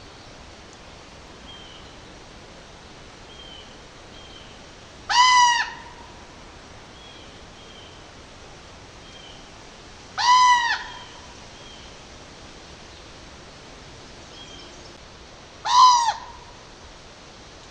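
A large bird calls three times, about five seconds apart: each call is a short, loud, arched croak or honk. Fainter small bird chirps sound in between over a steady outdoor background.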